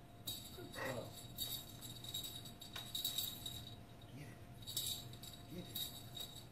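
Small bells in a baby's rattle toy jingling in short shakes, about six times roughly a second apart.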